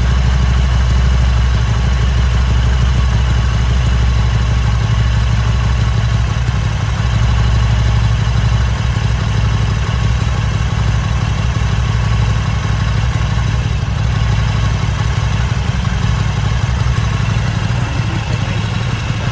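Harley-Davidson Sportster's air-cooled V-twin idling steadily, running again after a jump start of its flat battery following four months in storage.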